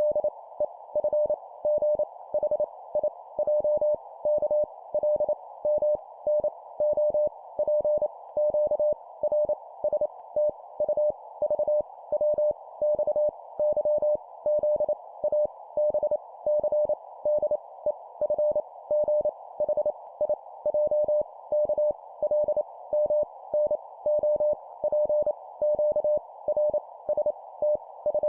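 Morse code (CW) tone of about 600 Hz, keyed on and off in dots and dashes at 25 words per minute, sending letters. It sits over a steady band of filtered hiss that fills the gaps between elements.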